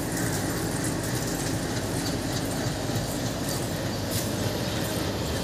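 Steady rumbling railway platform noise, with no voices.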